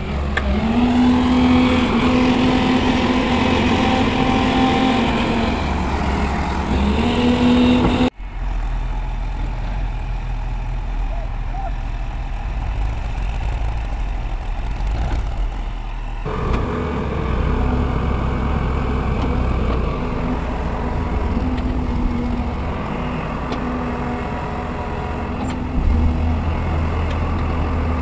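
Diesel engines of a wheeled excavator and a tractor running at work. The engine pitch rises just after the start, dips briefly, then rises again as the machines work under load. The sound changes abruptly twice.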